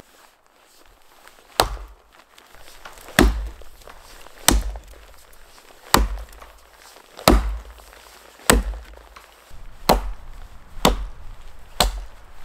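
Wood being chopped: nine sharp chopping strokes, each with a dull thud, about one to one and a half seconds apart.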